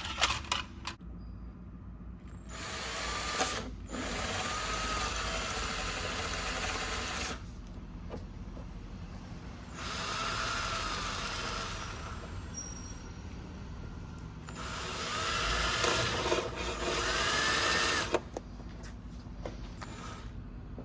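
Power drill boring small pilot holes into a car's rear spoiler, running in three spells of a few seconds each with pauses between.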